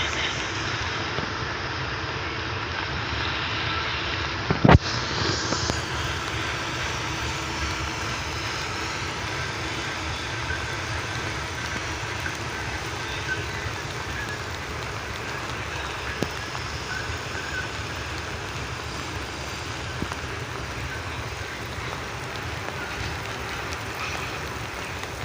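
A train running: a steady rumble and hiss with faint wavering high tones, and a single sharp knock about five seconds in.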